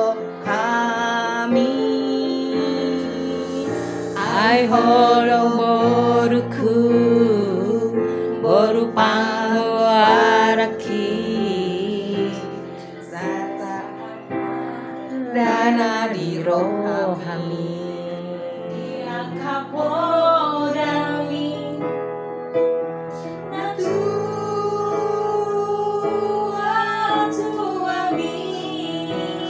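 A woman singing a slow song with vibrato, over long held keyboard chords.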